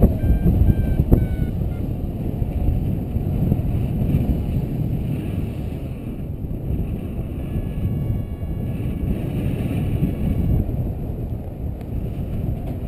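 Wind buffeting the microphone of a camera carried on a paraglider in flight: a steady, dense rush of airflow noise, strongest in the low range.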